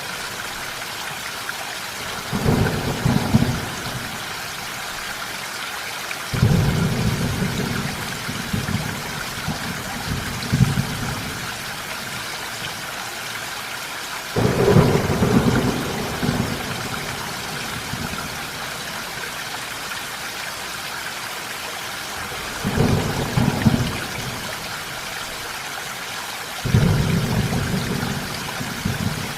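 Steady rain hissing throughout, with five rolls of thunder that each start suddenly and rumble deep for a few seconds.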